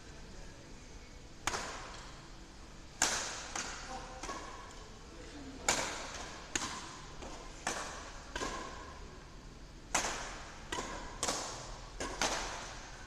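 Badminton rackets striking a shuttlecock back and forth in a rally, sharp smacks each followed by the echo of a large hall, about one a second and coming faster near the end.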